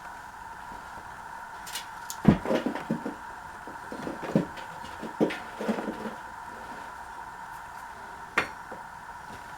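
Light knocks and short clatters of small hard objects being handled, in a few groups, the loudest a little over two seconds in and another near the end, over a steady background hum.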